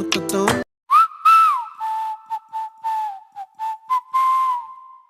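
Background music cuts off under a second in, then a whistled tune follows: one clear note around 1 kHz that swoops up and down in short phrases, with breathy hiss on each note.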